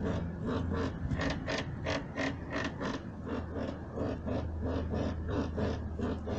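Rear anti-roll bar (stabilizer) bushings on a 2011 Jeep Liberty (KK) creaking over and over in an even rhythm, about three creaks a second. The rubber bushings are probably worn.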